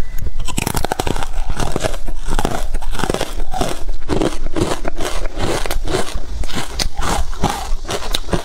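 Close-miked bite into a stick of ice dipped in matcha powder, then repeated crunching as the ice is chewed.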